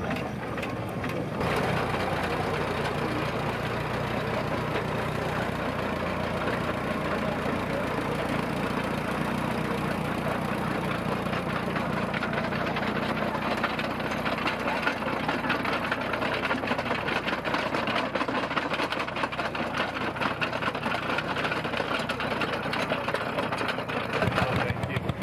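Old crawler tractor's engine running steadily with a rapid, even beat.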